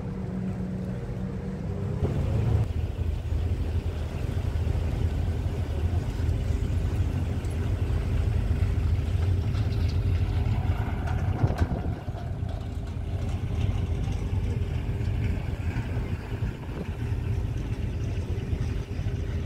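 Passenger ship's engine running on deck, a steady low rumble with a constant hum. It grows louder and deeper about two seconds in, then holds steady.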